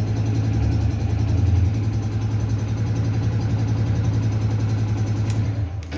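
An engine idling steadily with a low, even hum, which stops near the end.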